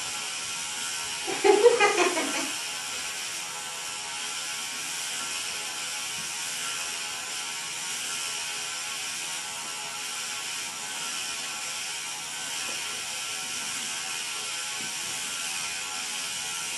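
Small motor and gears of a flying ghost Halloween decoration running with a steady whirr. About a second and a half in, a short pitched call rises over it for about a second.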